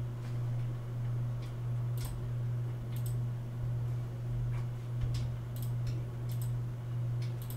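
Computer mouse clicking, a scattering of short sharp clicks, over a steady low hum that swells and fades about once a second.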